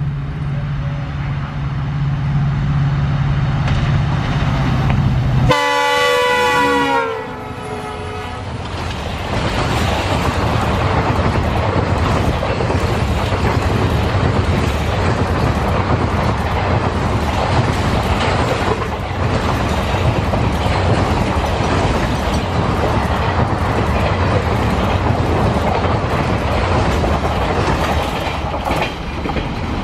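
A WDP4D diesel locomotive hauling an express passenger train: a low steady engine drone as it approaches, then a loud multi-tone horn for about two seconds around five seconds in. The train then passes at speed, and its passenger coaches roll by with a continuous wheel-on-rail rumble and clatter.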